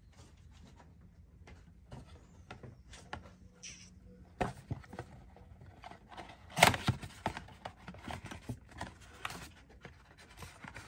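A cardboard parts box handled and opened with gloved hands: scattered taps and rustles, with the loudest knock a little past the middle as the box is opened, then more rustling of cardboard.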